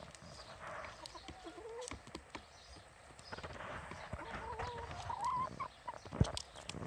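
Ex-caged laying hens clucking, with short wavering calls, while they peck sunflower seeds from a plastic tray of water, their beaks tapping and clicking on the tray. One sharper knock comes about six seconds in.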